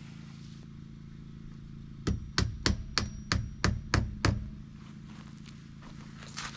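Eight hammer blows in quick succession, about three a second, each with a short metallic ring, as a hammer drives a fastener into a log wall to anchor a tie-down strap.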